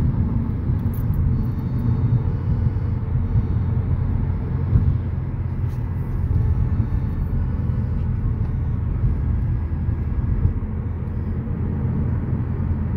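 Steady low rumble of road and tyre noise heard inside the cabin of a moving car on a winding road.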